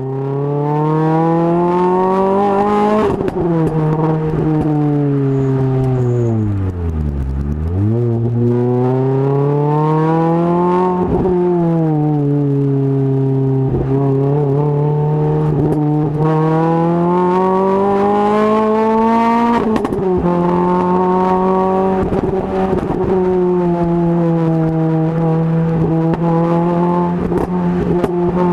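Renault Clio RS 200 engine through its Supersprint exhaust, driven hard. The revs climb, sweep down to a low point about seven seconds in and pull back up, then the pitch drops sharply at upshifts about eleven and twenty seconds in, and the engine holds a steady, high note in between.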